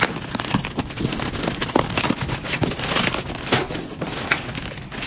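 Plastic bubble wrap and packing rustling and crinkling, with many irregular crackles, as it is cut with scissors and pulled open.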